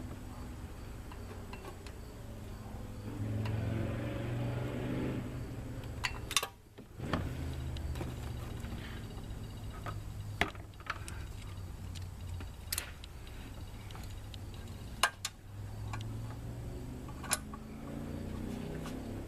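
Scattered sharp metallic clicks and clinks of hand tools, a socket and ratchet on bolts, over a steady low hum.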